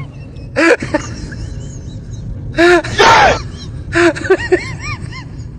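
Short wordless vocal cries and exclamations, several brief rising-and-falling yelps in a row, over a steady low hum.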